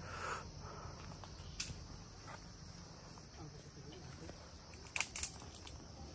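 Insects chirping steadily in a continuous high-pitched drone. A sharp click comes about a second and a half in, and two louder clicks follow close together near the end.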